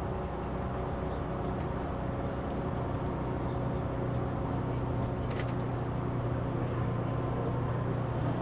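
Steady engine hum and road noise from inside a moving vehicle, with a constant low drone. It cuts off suddenly at the end.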